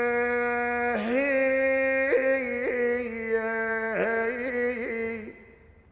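A man's unaccompanied voice chanting an Iraqi hida, the camel-driver's song: a long held note that slides and breaks into quick wavering ornaments, trailing off about five seconds in.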